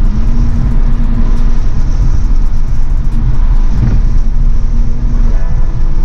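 2021 Toyota Supra's turbocharged 3.0-litre inline-six driving at a steady engine note over loud road rumble; the note shifts near the end.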